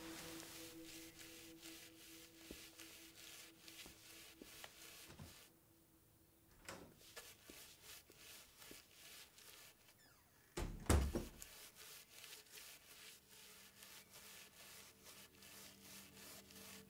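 A held, ringing musical tone fades out over the first five seconds or so. Then paintbrush strokes scrape on canvas in a repeated rubbing, with a heavy thump about eleven seconds in as the loudest sound.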